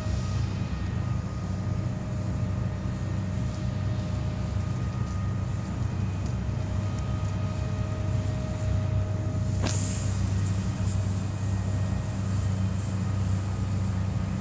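Steady low engine rumble, like motor traffic, with a brief sharp swish about ten seconds in.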